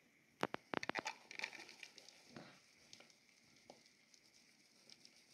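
Dubia roaches being poured from a plastic tub into a plastic cup on a scale: a quick cluster of sharp plastic clicks and taps in the first second, then faint pattering and scattered ticks as the roaches slide and tumble in.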